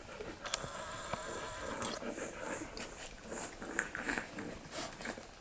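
Newborn Australian Shepherd puppies suckling while their mother licks them: soft wet smacking and clicking, with one sharper smack near the end.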